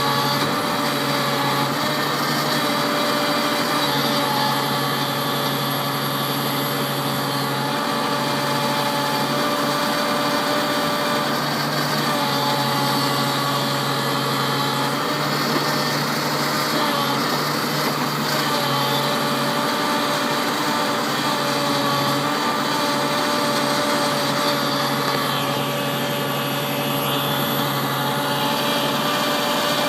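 New Holland TV-140 tractor's diesel engine running steadily, its pitch shifting slightly now and then.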